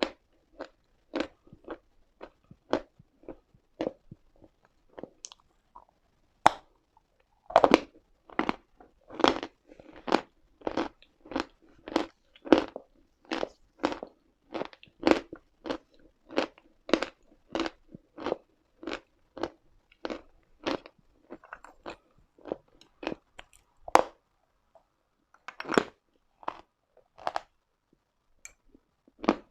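Uslada chalk being chewed: a run of crisp crunches, about one to two a second, thinning out to a few scattered crunches near the end.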